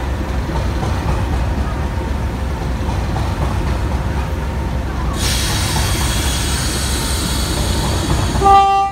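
Diesel locomotive idling with a steady low rumble. About five seconds in, a steady hiss starts, and near the end there is one short, loud horn toot.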